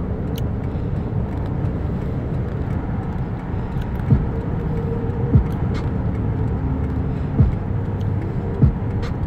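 Steady low road rumble of a car's engine and tyres, heard from inside the cabin while driving. Four brief low thumps come in the second half.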